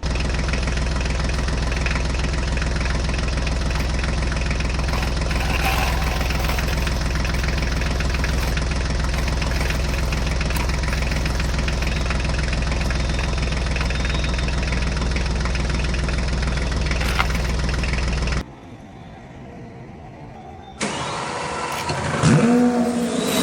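An engine running steadily at idle, cutting off suddenly about eighteen seconds in; after a short quieter gap, an engine revving with rising pitch comes in near the end.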